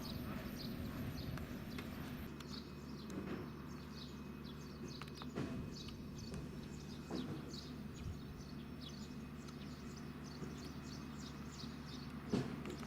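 Small birds chirping over and over in short quick notes, over a steady low mechanical hum, with a few scattered knocks, the sharpest near the end.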